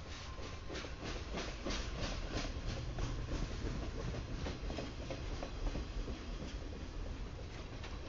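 Loaded freight flatcars rolling past, their steel wheels clicking over the rail joints about three times a second over a steady low rumble.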